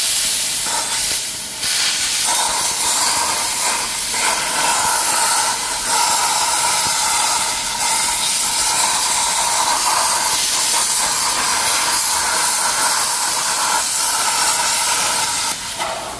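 iYeah CUT55 plasma cutter's torch cutting 3/16-inch (4.8 mm) steel plate by hand: a loud, steady hiss of the plasma arc and compressed air with a steady tone in it. It drops to a quieter hiss near the end.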